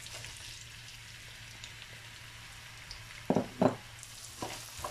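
Sliced onions dropped into hot oil in a nonstick pan, sizzling steadily. About three seconds in come two quick knocks, then two fainter ones near the end.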